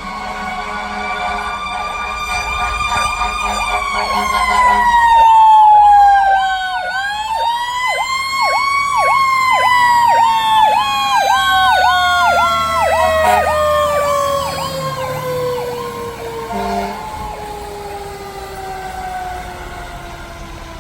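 Fire apparatus sirens sounding while responding: one tone rises and then falls in a long slow glide, with a fast yelp pulsing over it through the middle. The loudest part comes about five to six seconds in.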